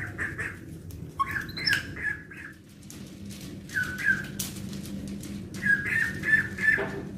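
Short, high-pitched chirping animal calls in quick runs of three or four notes, coming four times, with light clicks in between.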